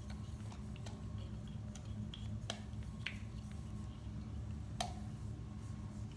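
Scattered light clicks and taps from small plastic paint pots and cups being handled while paint is emptied out. The sharpest clicks come about two and a half and nearly five seconds in, over a steady low hum.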